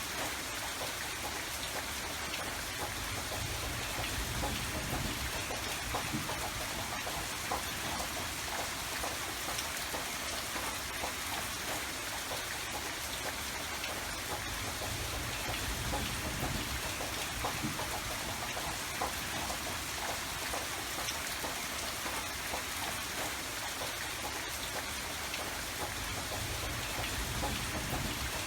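Steady rain falling, with many small drop ticks over a hiss and a low rumble that swells and fades.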